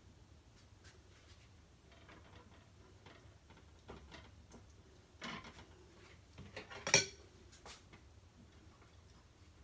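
Quiet kitchen handling as cooked lasagna noodles are lifted from a pot and laid into a glass baking dish, with faint scrapes and a couple of sharp clinks of kitchenware, the louder one about seven seconds in.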